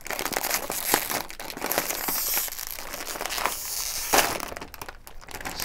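A bag of potato chips being torn open and handled: the crinkly foil bag crackling and rustling, with a sharp snap about four seconds in.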